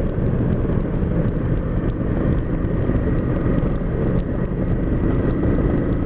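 Motorcycle engine running steadily under heavy wind noise on the rider's microphone.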